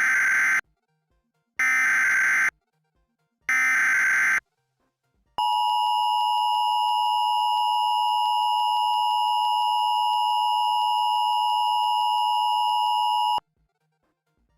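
Emergency Alert System SAME header: three one-second bursts of warbling digital data tones, valid headers that EAS receivers can decode and act on. They are followed by the EAS attention signal, a steady two-tone alarm held about eight seconds before it cuts off.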